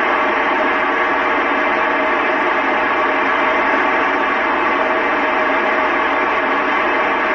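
Two-metre FM transceiver tuned to the ISS downlink on 145.800 MHz putting out a loud, steady hiss of open-squelch static: the space station's signal has dropped between the astronaut's transmissions.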